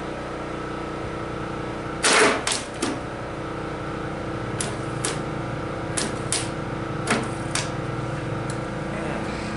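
Sharp clicks and light knocks from hands working on the engine of an old riding mower, with a louder cluster about two seconds in and single clicks every half second or so after, over a steady background hum.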